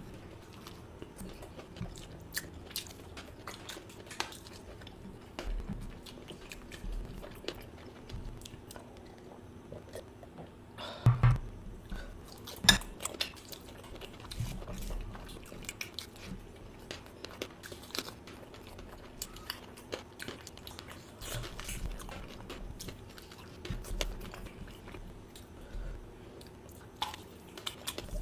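A person eating with their mouth close to the microphone: steady chewing with wet smacks and small crunches throughout. There are two louder sharp knocks a little before and just after the middle.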